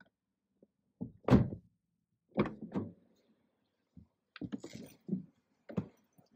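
Car doors and bodywork thudding and knocking, heard from inside the parked car's cabin: several separate dull thuds, the loudest a little over a second in. Near the end the driver climbs into her seat.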